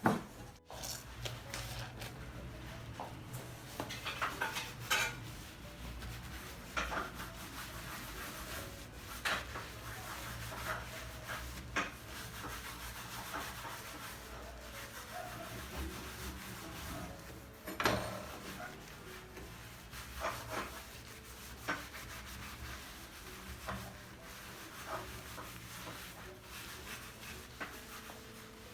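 Light household handling sounds: scattered rubbing, scraping and small clicks over a low steady hum.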